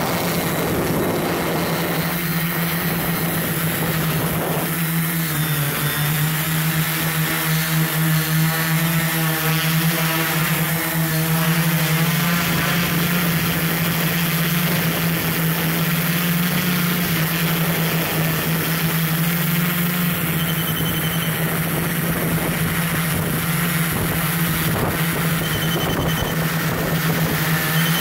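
A multirotor drone's motors and propellers humming steadily, heard from the camera it carries, with a broad hiss over it. The hum's pitch dips slightly about five seconds in and then settles back.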